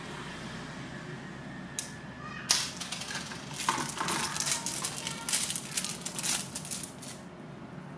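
Clear plastic candy wrapper crinkling in a run of short, irregular crackles as a small candy is unwrapped by hand, starting about two and a half seconds in, after a single light click.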